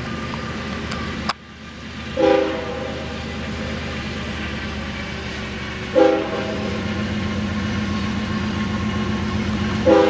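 Union Pacific diesel locomotive approaching with a steady engine rumble, sounding its multi-note air horn in separate blasts about two seconds in, about six seconds in, and again near the end. The sound cuts out sharply for a moment just over a second in.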